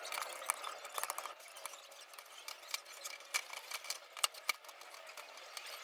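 Light clicks and taps of hands and a small tool working on a graphics card as it is taken apart, irregular and scattered, with two sharper clicks a little after four seconds in.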